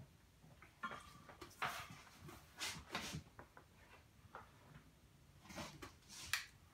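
Faint, scattered small clicks and knocks, as of objects being handled and set down in a small room.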